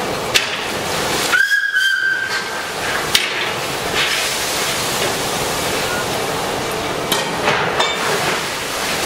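A JZ 25-30 0-6-0 narrow-gauge steam locomotive gives a short whistle blast about a second and a half in, lasting about a second, over a steady hiss as it moves slowly with its tipper wagons. Sharp metallic clanks come several times.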